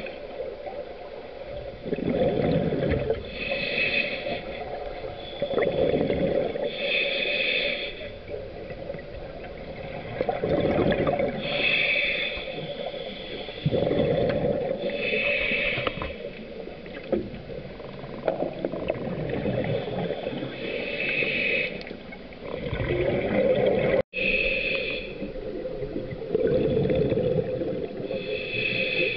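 A scuba diver breathing through a regulator underwater. Each breath is a short hissing inhale followed by a longer bubbling exhale, and the cycle repeats about every three to four seconds.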